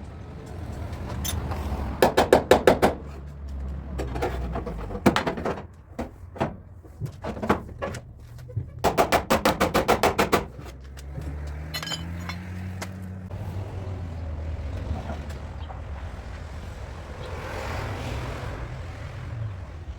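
Hammer strikes on sheet metal in two quick bursts of about eight to ten blows each, with a few single knocks between them, over a low steady hum.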